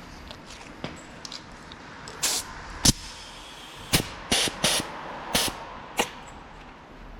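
Workshop handling noises: a cluster of sharp clicks and knocks mixed with short bursts of hiss, about seven in all over a few seconds in the middle.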